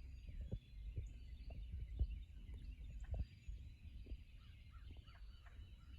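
Faint wild birds chirping and calling outdoors over a low rumble, with a few soft knocks, the strongest about two seconds in.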